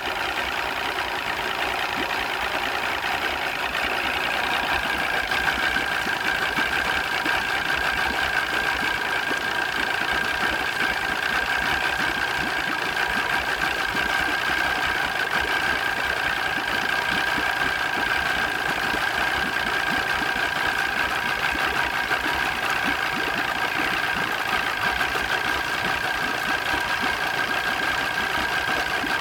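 Mariner 200 EFI V6 two-stroke outboard idling roughly and unevenly, the idle problem the owner is showing. A steady high whine runs over the engine note and grows stronger about five seconds in.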